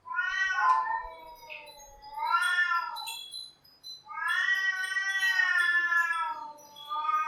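Cats yowling: a string of drawn-out, wavering calls that sag in pitch at their ends, the longest lasting about two and a half seconds.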